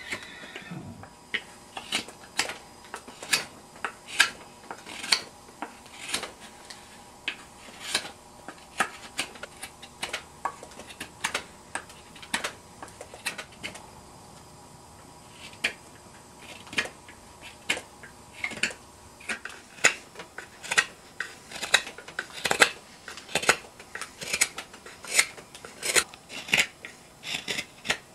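Straight carving knife paring shavings off the outside of a wooden bowl: a run of short slicing cuts, roughly one or two a second, with a brief pause about halfway through.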